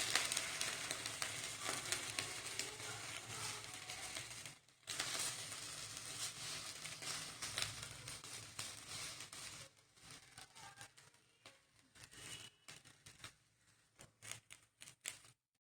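Karpooravalli (Indian borage) leaves sizzling and crackling in a hot kadai as they wilt and are turned over, with a short break about five seconds in; the sizzle thins out and dies away over the last few seconds.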